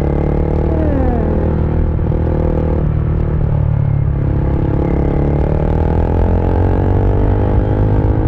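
KTM RC single-cylinder motorcycle engine running steadily at cruising speed, heard from the rider's seat. The engine note shifts briefly about three seconds in.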